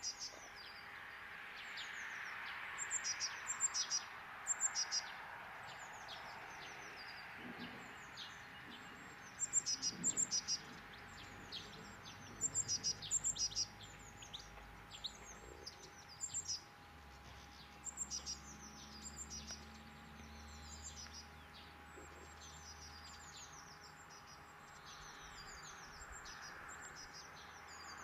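Birds chirping in quick bursts of short, high, falling chirps, repeated many times over a steady background hiss.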